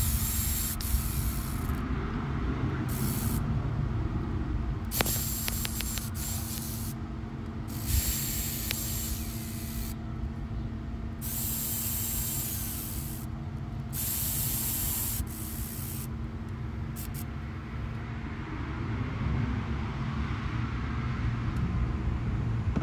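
Repeated bursts of hissing spray, about seven of them, each starting and stopping sharply, over a steady low hum. The bursts end after about eighteen seconds, leaving only the hum.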